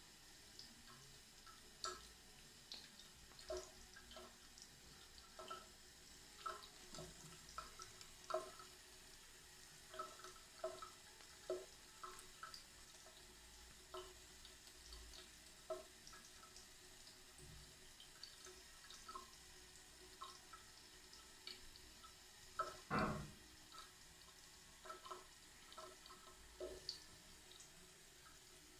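Cat drinking water: faint, irregular small wet drips and laps, about one or two a second, with one louder knock about two-thirds of the way through.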